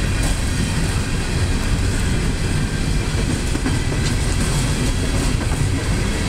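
Empty steel coal hopper cars of a freight train rolling past, with a steady rumble of wheels on rail and a few faint clicks.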